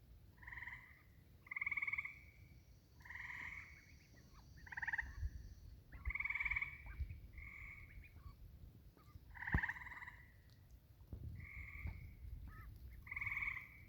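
Frogs calling around a pond: short pulsed trills, each about half a second long, repeating roughly once a second, some overlapping. A single sharp knock sounds about ten seconds in.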